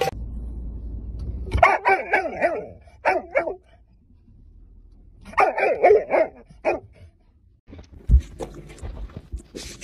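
A dog barking in two bouts of quick barks a few seconds apart, then a thump and some knocking near the end.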